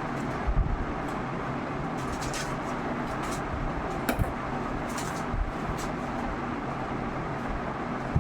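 Steady background noise, like a fan or distant traffic, with a few light knocks and clicks of a charger being handled.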